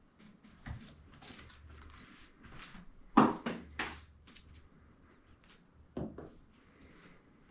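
A few sudden dull knocks over faint rustling: a quick run of knocks about three seconds in, the loudest sounds here, and another knock about six seconds in.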